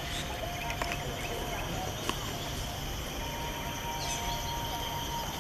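Outdoor ambience: a steady high insect drone over a low rumble, with a few short sharp clicks.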